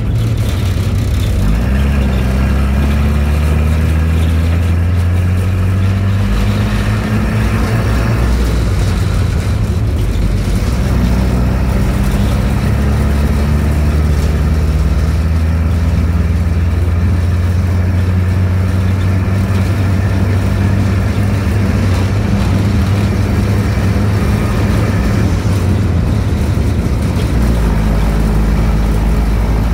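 1942 Autocar M16A1 half-track's White 160AX straight-six gasoline engine driving the vehicle, heard from the open cab. The engine pitch climbs as it accelerates in the first several seconds and again about eleven seconds in, then holds a steady run and drops back near the end.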